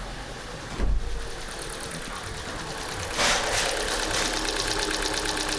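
Hyundai ix35's G4NA engine running, with a sudden rise in level about three seconds in and then a rapid, even ticking. The mechanic takes the ticking for a hydraulic lifter knocking, not the engine itself.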